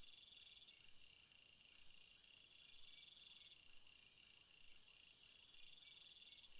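Faint insect chorus: crickets chirping in a steady pulse, with a buzzy trill that comes in for about a second every two to three seconds.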